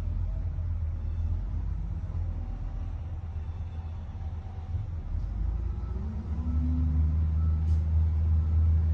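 Low, steady rumble of heavy diesel engines, heard from inside a truck cab. About six seconds in it grows louder and takes on a clearer engine note as the SDLG wheel loader working beside the dump truck comes under load.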